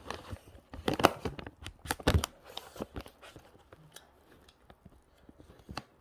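Close-up handling and eating noises: a string of sharp clicks and crinkly rustles, loudest about one and two seconds in, then quieter.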